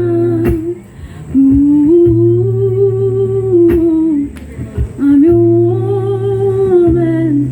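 A woman singing wordless, hummed notes in three long held phrases with short breaks between them, over a low steady tone.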